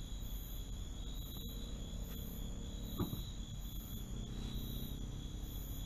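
Night insects, crickets, chirping in short high bursts that repeat about once a second over a steady high-pitched drone. A faint click comes about one and a half seconds in, and a short knock about three seconds in.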